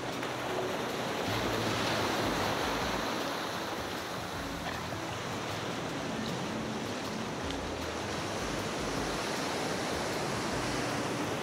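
Small waves washing up and draining back over shallow water at a sandy shoreline, close to the microphone, with some wind on the microphone. The wash swells louder about two seconds in.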